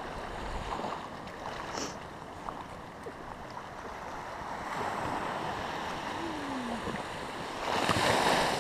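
Sea waves washing in, swelling about halfway through and rushing in loudest near the end.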